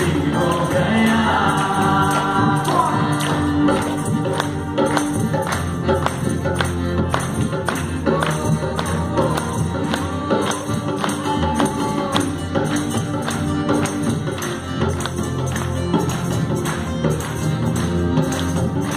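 Live band and singers performing a song, with group vocals over guitars and drums and a steady beat of about two strokes a second. The singing is clearest in the first few seconds.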